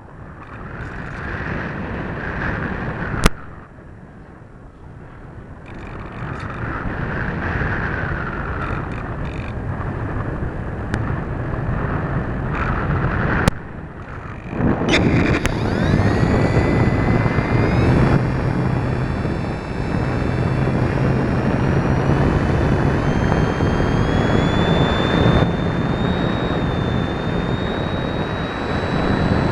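Onboard audio from an electric RC motor glider in flight: wind rushing over the airframe and microphone, with a couple of sharp clicks. About halfway through, the electric motor and propeller start with a whine that climbs slowly in pitch as it runs on.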